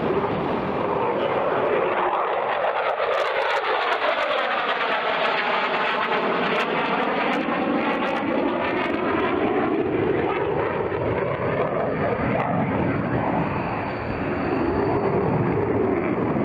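Lockheed Martin F-16V Viper fighter jet's engine noise in flight: a steady, loud jet roar with a sweeping phasing whoosh that falls and then rises in pitch from about two to twelve seconds in.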